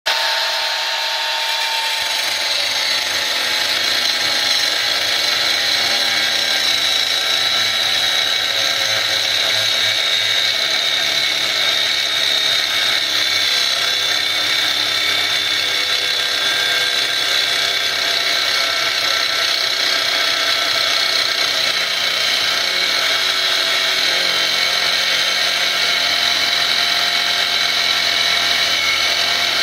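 Aldi Xfinity Plus 20 V cordless angle grinder running without pause, its grinding disc cutting through material with a steady high whine over a harsh grinding noise. The whine's pitch sags slightly at times under load.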